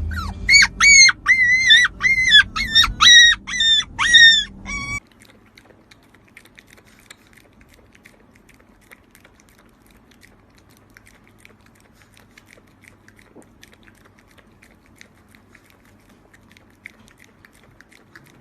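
A puppy whining and yipping in a quick run of about a dozen short, high-pitched squeals, two or three a second, each dropping in pitch at its end. The calls cut off suddenly about five seconds in, leaving only a faint background with small soft ticks.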